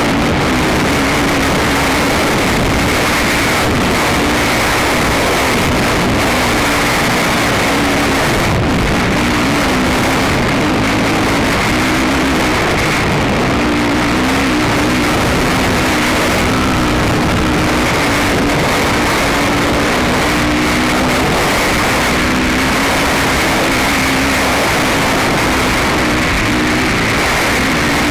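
Racing ATV (quad) engine running hard at high revs, heard on board, its pitch wavering up and down with the throttle, loud and unbroken.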